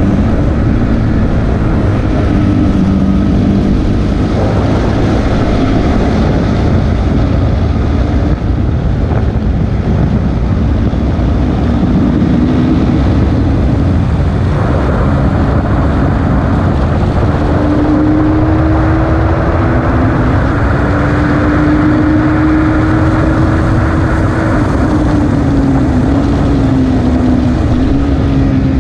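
KTM RC 390's single-cylinder engine running hard on track at speed, its pitch gliding up and down with throttle and gears, under heavy wind rush. The pitch climbs and holds high in the second half, then drops near the end.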